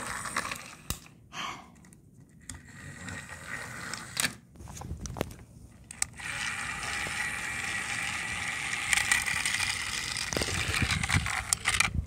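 Battery-powered toy train's small motor and gears running with a steady whir from about six seconds in. Before that, scattered clicks and knocks of the toy engines being handled on plastic track.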